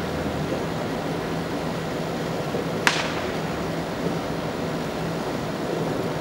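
Distant aerial fireworks display heard as a steady hiss with a low hum underneath, and one sharp crack about three seconds in.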